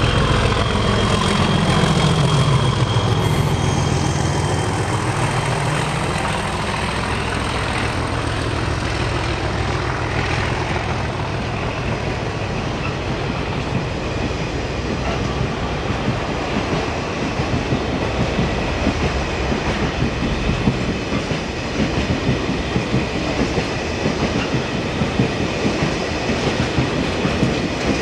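Class 37 diesel locomotive passing close, its English Electric V12 engine loud at first and dropping in pitch as it goes by. Then the steady rumble of the train's wheels on the rails, with a regular clickety-clack toward the end.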